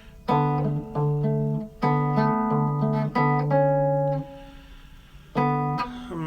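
Fingerpicked guitar: a bass D thumbed on the fifth string's fifth fret under plucked melody notes on the higher strings, in several short phrases. The notes ring out and die away about two-thirds of the way through, and after a brief pause the playing starts again.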